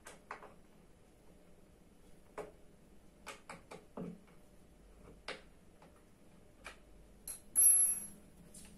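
Scattered small clicks and taps of hands working office-chair parts. Near the end comes a loud, brief metallic clatter with a bright ring, the steel hex key dropping onto the ceramic tile floor.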